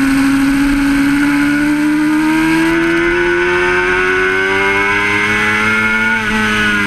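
Honda CBR600RR sportbike's inline-four engine pulling hard out of a corner, its pitch rising steadily as the bike accelerates at full throttle, then dropping near the end as it shifts up a gear, with wind rushing past.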